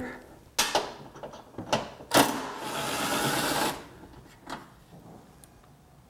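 Cordless impact gun with a 10 mm socket on an extension running for about a second and a half, backing out a cowl bolt. A few sharp clicks of the tool and socket on metal come before it, and faint clicks follow.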